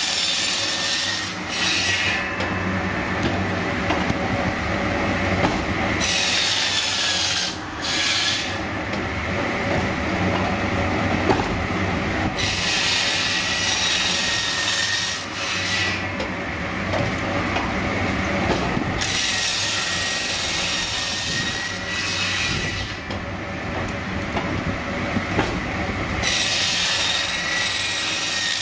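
Log segment saw running steadily and cross-cutting a raw wood log into short segments. It rasps through the wood again and again, each cut lasting a second or a few seconds, over the steady drone of the saw's motor.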